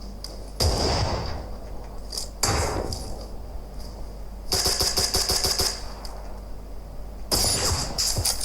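Gunfire sound effects in four bursts, one of them a rapid automatic volley of about seven shots a second, played as an audio demo of a gaming headset.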